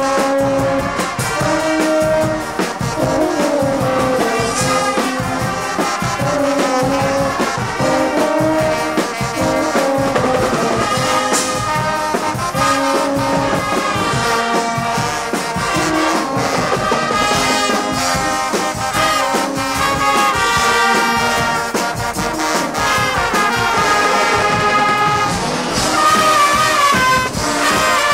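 Guggenmusik carnival band playing loud, brassy music: trumpets, trombones and tubas blaring a tune over a drum kit's steady beat with cymbals.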